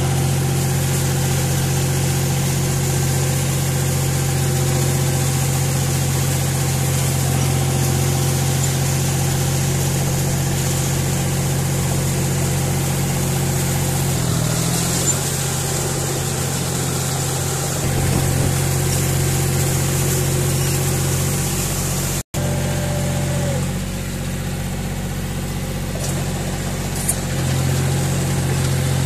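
John Deere 5045 tractor's three-cylinder diesel engine running steadily at a constant speed while the tractor is driven. The sound cuts out sharply for an instant about two-thirds of the way through.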